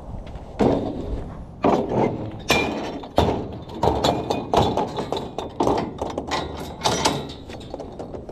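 Steel mesh trailer ramp gate being lifted and swung up by hand: a run of metal clanks and thunks, about eight loud ones, with rattling of the mesh between them.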